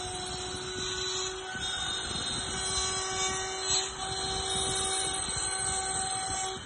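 CNC router spindle milling a wooden cylinder turned on a rotary axis: a steady whine over the rasping of the bit cutting wood, with a brief louder moment a little before four seconds in.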